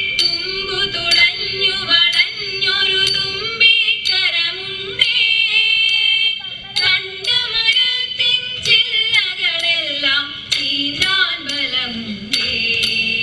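Female voices singing a Malayalam Thiruvathira Kali song, with sharp handclaps from the circle of dancers at intervals.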